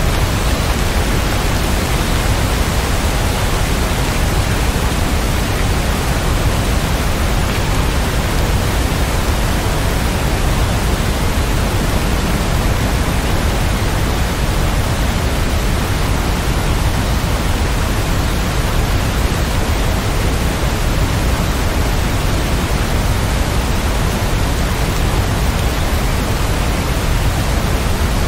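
Heavy rain as a steady, even hiss, with no separate drops or thunder.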